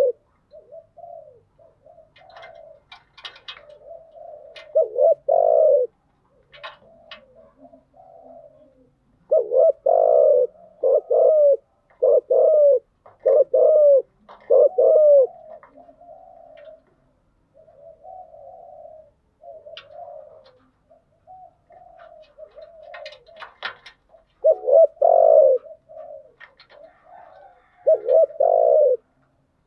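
Spotted doves cooing, in loud, deep coo phrases: one about five seconds in, a run of five in a row from about ten seconds, and more near the end, with softer coos between them. These are lure calls (bowing coos and advertising calls) played to a newly caught dove to stimulate it into calling.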